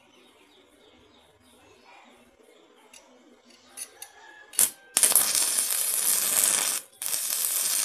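Stick-welding arc tacking steel rods onto pliers jaws. After a few light taps of the rod, the arc strikes briefly, then crackles in a steady run of about two seconds, breaks off, and restarts for about another second.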